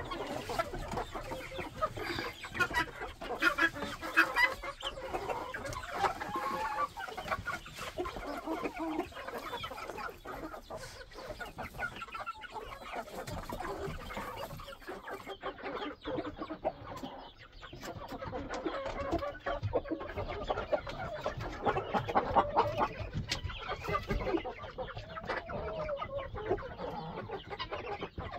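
A flock of hens and roosters clucking and calling continuously, many voices overlapping.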